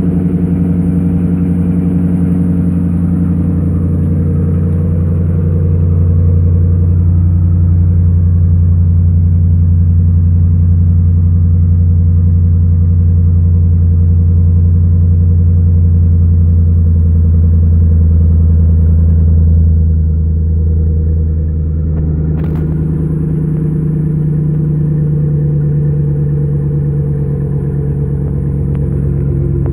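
A 2017 Ram 1500's 5.7-litre Hemi V8 idling steadily just after a cold start at about −5 °C, through a Flowmaster American Thunder muffler, with a low exhaust rumble.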